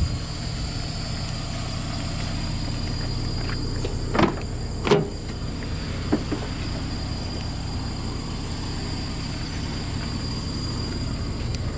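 Side-hinged rear door of a Toyota Rush being unlatched and swung open: two short clunks a little under a second apart, about four seconds in, over a steady low hum.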